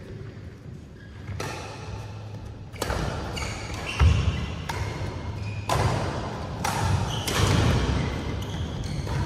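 Badminton rally: sharp racket strikes on the shuttlecock and players' footwork on the court, echoing in a large hall. The loudest sound is a low thump about four seconds in.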